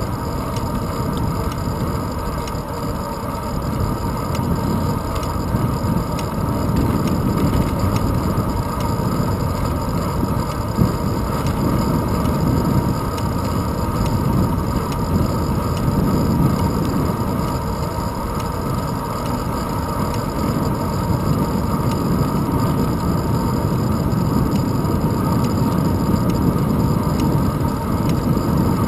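Steady wind rush and road rumble on a handlebar-mounted GoPro Hero 2 as the bicycle rolls along a paved road. The noise is heaviest in the low range and swells and eases slightly.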